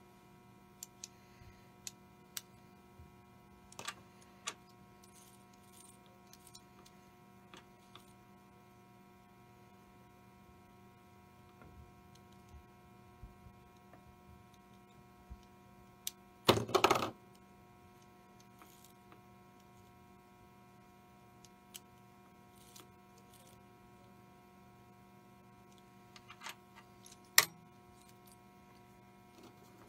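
Scattered small metallic clicks and taps from handling a toy locomotive's metal chassis and wheels at an arbor press. There is a louder clatter about 17 seconds in and a sharp click near the end, over a steady electrical hum.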